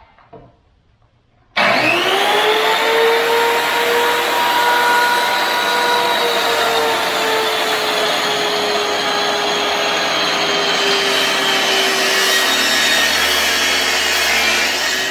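Track saw starting up with a quick rising whine about a second and a half in, then running steadily as it cuts across the wooden shuffleboard top, its pitch sagging slowly under the load of the cut.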